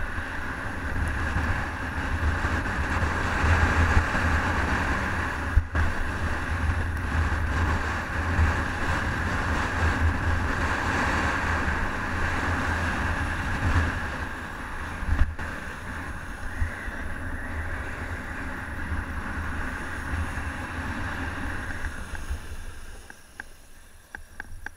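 Wind buffeting the action-camera microphone over the steady scrape of a rider sliding downhill on packed snow. It quietens near the end as the run slows.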